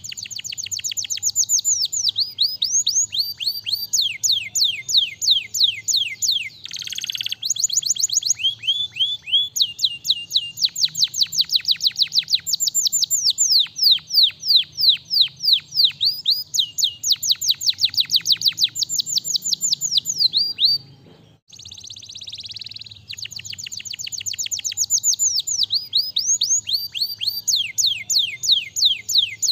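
Domestic canary singing: long trilled phrases of fast, sharply falling high notes, one phrase after another with short gaps and a brief break about 21 seconds in.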